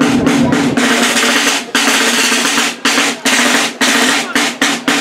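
Solo buekorps rope-tensioned snare drum played with sticks: fast rolls and rudiments broken by short pauses, over a steady low ring.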